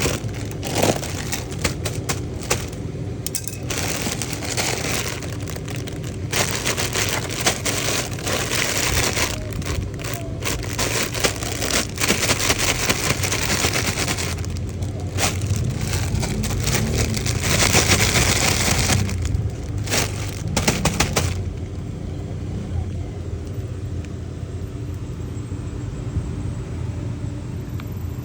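Parcel packaging being handled and opened: crinkling plastic and cardboard with many sharp cracks and crackles, which die down about three quarters of the way through, over a steady low rumble.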